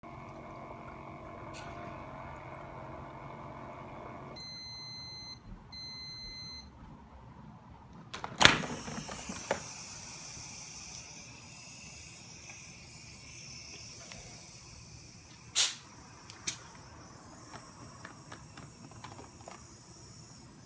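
Bonne O carbonation machine humming steadily, stopping about four seconds in, then giving two beeps that signal the end of its carbonation cycle. A loud sharp sound comes about eight seconds in as the bottle is released from the machine. A faint steady hiss then follows, with another sharp knock about halfway through and a few light clicks.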